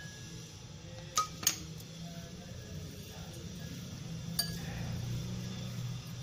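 Light clinks of kitchenware against a glass mixing bowl: two close together about a second in and one more a little past four seconds. A faint steady low hum runs underneath.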